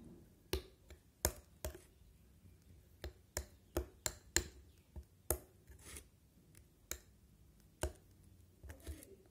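Metal spoon clinking and tapping against a ceramic bowl while stirring a thick chutney, with irregular sharp clicks every half second to a second, some louder than others.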